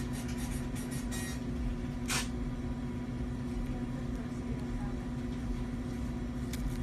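A steady low hum with a few light clicks in the first second and a sharper click about two seconds in.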